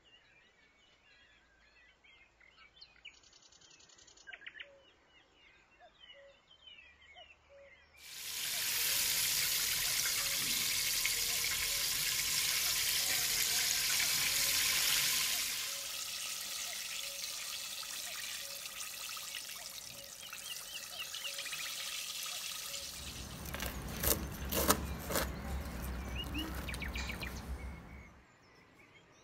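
Birds chirping faintly, then about eight seconds in a loud, steady sizzle of chicken pieces deep-frying in hot oil starts suddenly. It eases a little about halfway through, picks up a cluster of sharp clicks and a low rumble near the end, and stops shortly before the end.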